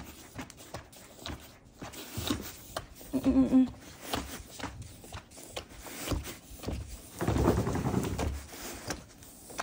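Siberian husky on its side during a seizure, its body and paws knocking and scraping against a wooden floor. There is a short vocal sound about three seconds in, and a longer bout of scuffling and rustling near the end.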